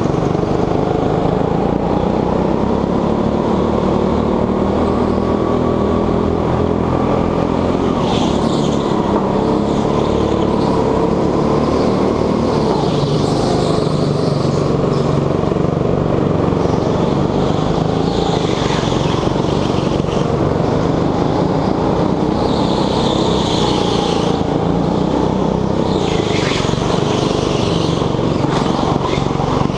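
Petrol rental go-kart engine heard from onboard, its pitch rising and falling again and again as the kart accelerates and lifts off through the corners, with the engines of nearby karts mixed in.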